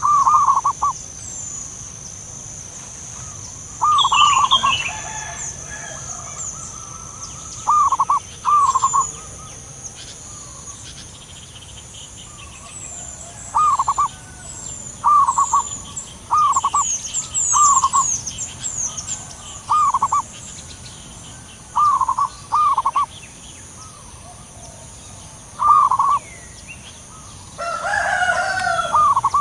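Zebra doves calling back and forth, a string of short trilled coos, some in pairs, each about half a second, spaced a second or more apart. Quick high chirps of small birds run above them, and a louder, fuller call comes near the end.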